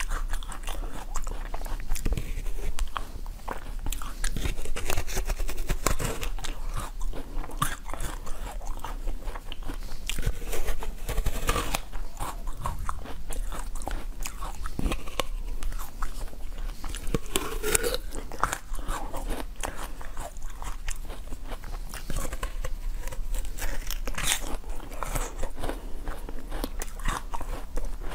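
Close-up biting and crunching of a hard frozen, pepper-shaped piece of ice: teeth crack off chunks and chew them, in many sharp cracks one after another.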